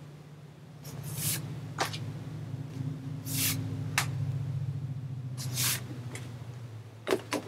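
Glossy photo cards being handled and slid against each other: about half a dozen short papery swishes, over a steady low hum.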